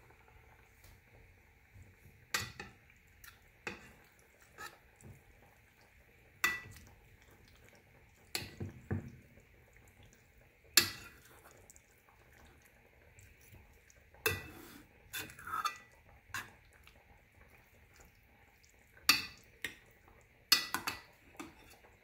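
Metal spoon clinking and scraping against cooking pots while stirring, with sharp knocks every second or two, some in quick clusters.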